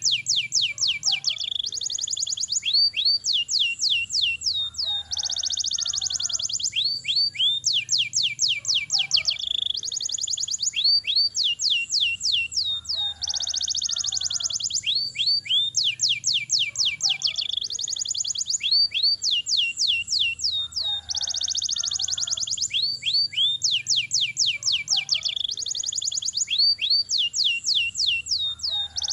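Domestic canary singing a long, unbroken rolling song: fast trills of rapid falling notes alternating with buzzy held notes, each section lasting about a second. The same sequence of sections repeats about every eight seconds.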